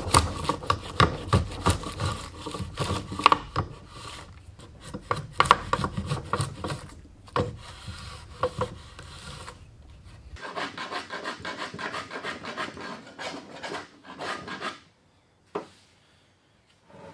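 A hand tool is drawn back and forth over wood in repeated rasping strokes. About ten seconds in, a denser run of quicker scraping strokes follows. Near the end there are a couple of light knocks.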